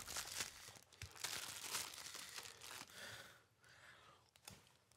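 Faint crinkling and tearing of a plastic Red Vines licorice bag being pulled open, mostly in the first three seconds, then a few small crackles.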